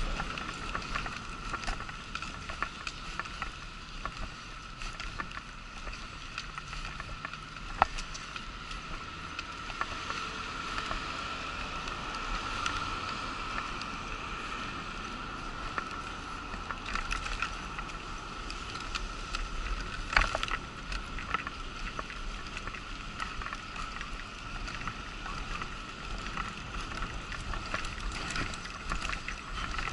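Wheelchair rolling over brick paving and then across asphalt, with a steady high-pitched whine and a low rumble. Sharp knocks from bumps, the loudest about eight seconds in and another about twenty seconds in.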